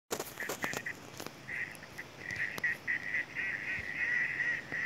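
Waterfowl calling: a rapid, nearly unbroken string of short, high calls, with a few sharp clicks in the first second and a half.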